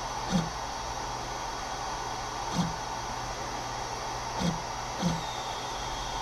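Snapmaker A350's motors making four short, low buzzes as the print head is stepped down toward the bed in small increments during bed-level calibration. The last two buzzes come close together, over a steady hiss.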